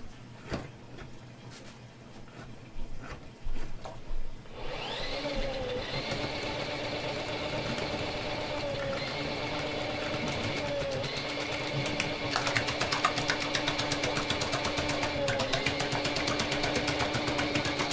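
Electric drain-cleaning machine: after a few knocks, its motor starts about four and a half seconds in and runs steadily, the pitch dipping briefly every few seconds, with a rapid clicking rattle over the second half.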